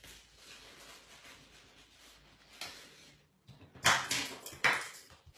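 Cardstock being handled and folded by hand: low rustling, then a few short, louder rustles of the card being creased in the second half, the two loudest close together near the end.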